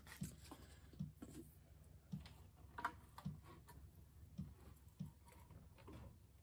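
Faint handling clicks on a steel workbench as a bottle of Dykem layout dye is capped and set down and a desk lamp is swung over near the end. Underneath runs a faint, regular low tick about once a second.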